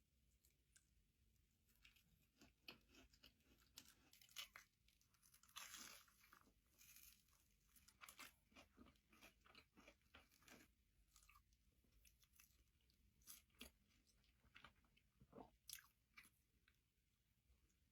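Faint, irregular crunching of crispy food being bitten and chewed close to the microphone, many small crackles in quick succession.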